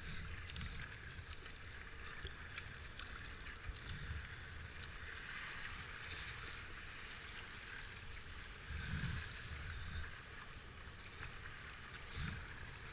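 Shallow whitewater rapids rushing and hissing around a kayak, with small splashes from the paddle blades. Low rumbles of wind on the microphone come and go.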